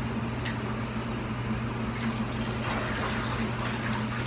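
Liquid sounds from a pot of crab-boil seasoning water, most likely lemon juice being poured in, over a steady low hum. There is one click about half a second in.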